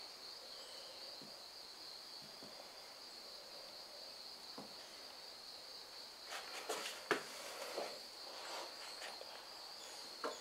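Insects singing in a steady high-pitched trill, with a few short clicks, most of them about six to seven seconds in.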